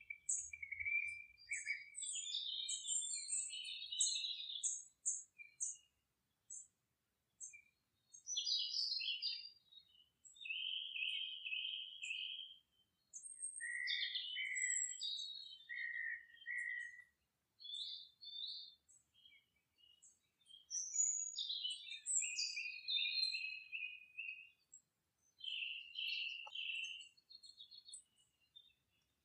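Small birds chirping and singing: rapid high-pitched chirps and short warbling phrases in bursts, with brief silent gaps between them.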